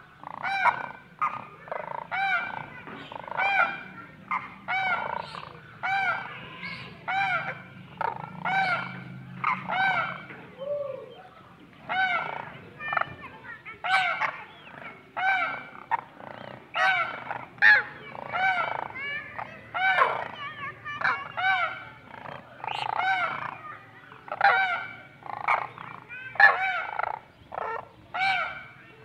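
Caged partridges calling over and over: short, harsh, arched calls following one another about one to two a second without a break.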